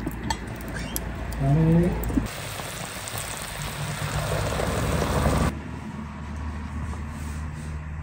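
Aluminium pot lid lifted off a lamb stew cooking over charcoal, with a few light metal clicks, and a short hum from a person about one and a half seconds in. Then a steady hiss from the open, steaming pot for about three seconds, which cuts off and gives way to a quieter low hum.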